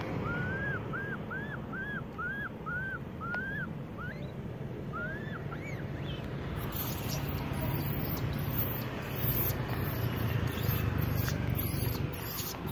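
Baby macaque crying: a quick run of about eight short, high, arching cries, then a few single cries. In the second half there are sharp clicks and crackles over a steady low rumble.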